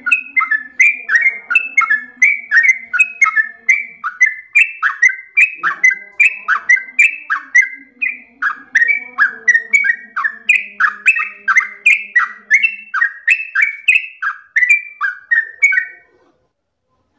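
Yellow-vented bulbul (trucukan) singing a long, unbroken run of rapid, loud, bubbly whistled notes, about three a second, each slurring downward. The run cuts off suddenly near the end.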